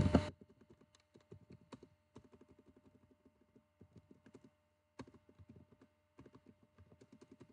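Keystrokes on a computer keyboard, typed in quick runs with short pauses, faint throughout, with one slightly louder stroke about five seconds in.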